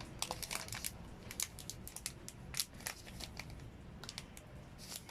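Plastic wrapping on a brand-new smartphone being opened: irregular crinkling and crackling with sharp little snaps as the film is handled and torn.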